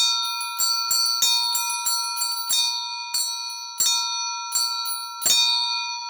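A set of eight belfry bells rung in an Orthodox-style peal: quick, uneven strikes with the bells' tones sustaining under them. The last strike comes about five seconds in and is left to ring out.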